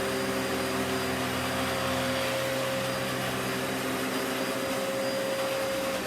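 Dyson DC14 Animal bagless upright vacuum cleaner running at full power, a steady motor whine over the rush of air. Right at the end it is switched off and the whine starts to fall in pitch as the motor winds down.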